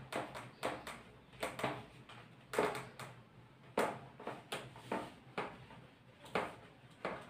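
Cloth duster wiping a whiteboard in repeated back-and-forth strokes, each a short rubbing swish, about one every half second to second.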